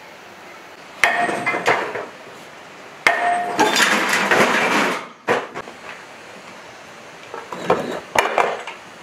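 Hard blows of metal on metal with a ringing clang, one about a second in and another about three seconds in followed by a second or so of clattering, then a few lighter clanks near the end: a sledgehammer and puller working the flywheel off an old small diesel engine.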